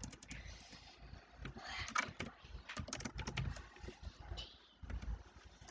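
Computer keyboard being typed on: a quick, irregular run of key clicks as a line of text is entered.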